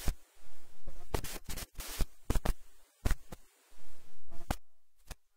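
Irregular crackles and scraping rustles on the microphone line, a few a second, with short stretches of hiss between them and a near-silent gap just after the midpoint.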